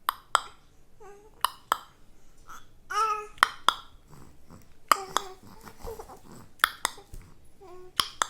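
A baby babbling in short pitched coos, with sharp clicks, mostly in pairs, between them every second or so.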